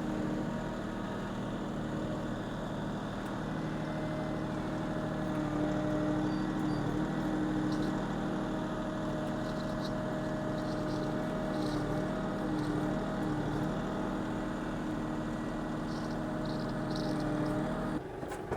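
A vehicle engine running steadily, its pitch wavering slightly.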